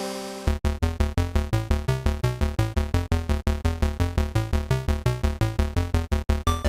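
Electronic background music: a held synthesizer chord fades out, then about half a second in a fast, even synth beat with a steady bass pulse starts.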